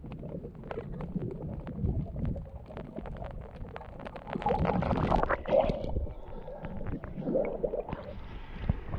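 Muffled underwater sound from a camera held below the surface: a low rumble with many small clicks and crackles, and bubbly gurgling bursts in the middle. Near the end the camera comes up to the waterline and the sound turns to a brighter hiss of water.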